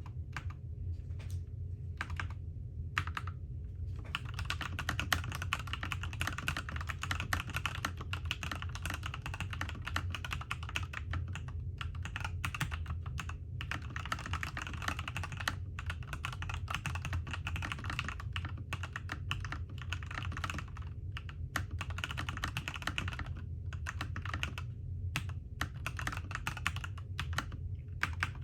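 Typing on an iFlytek T8 mechanical keyboard: a few single key presses at first, then about four seconds in, fast continuous typing with only brief pauses. A steady low hum runs underneath.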